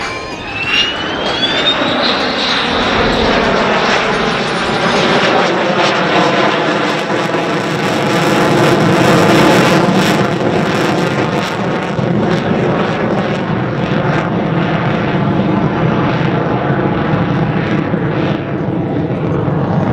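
F-16C fighter jet engine going to full afterburner for a near-vertical climb. A rising whine in the first two seconds gives way to a loud, crackling jet roar that peaks about halfway through and then holds steady.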